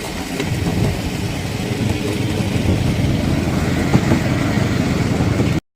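Miniature railway train running along the track, a steady low rumble of its engine and wheels heard from an open passenger carriage. The sound cuts out for a split second near the end.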